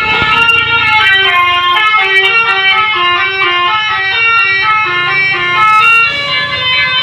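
Bus telolet horn, a multi-tone musical air horn, playing a quick melody of short, changing notes over the rumble of the bus engine.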